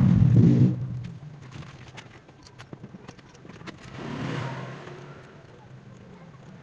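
A motor vehicle's engine passing by, loudest at the start and fading within about a second, then a second vehicle swelling and fading around four seconds in. Light clicks come and go throughout.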